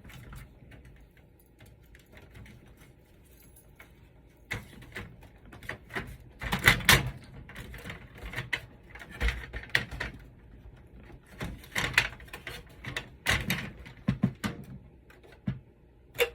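Irregular plastic clicks and knocks of a PC case's front cover being pressed onto the case, its pegs pushed into the matching holes. They start about four seconds in, after a quiet stretch.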